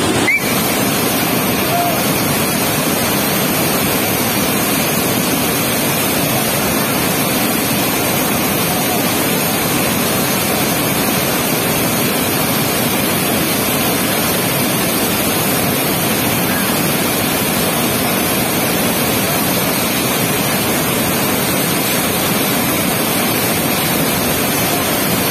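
Water rushing out of a barrage's sluice gate, a steady, loud churning of whitewater that does not change. There is one brief click about a third of a second in.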